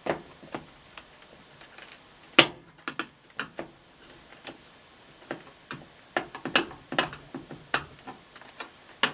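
Irregular clicks and knocks of hands working at the plastic snap tabs that hold an LG front-load washing machine's control panel, with one sharp knock about two and a half seconds in.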